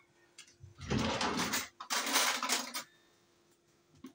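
Dishes and cutlery being handled while a meal is set out: two noisy spells of about a second each, the first heavier and lower, then a pause before more clatter near the end.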